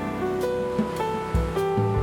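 Background music: instrumental track with held melodic notes over a steady low beat.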